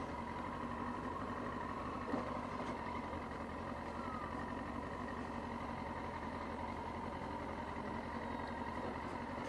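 Motorcycle engine running at a steady pitch, with no revving, and a single short knock about two seconds in.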